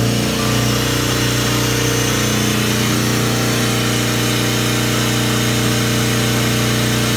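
Sperre marine air compressor running steadily, a loud constant machine hum with a strong low tone.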